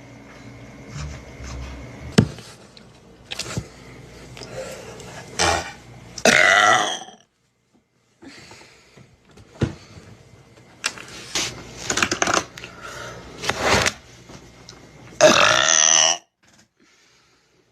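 A person burping: a string of burps, the two longest and loudest each drawn out for about a second, one about six seconds in and one about fifteen seconds in.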